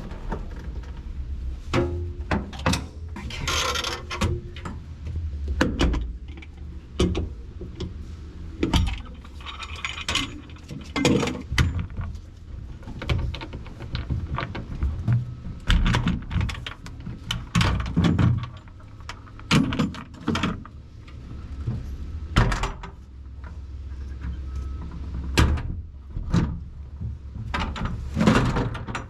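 Irregular metallic knocks and clunks, some sharp and loud, from parts and tools being handled and moved around inside the steel hull of a BMP-1, over a low steady hum.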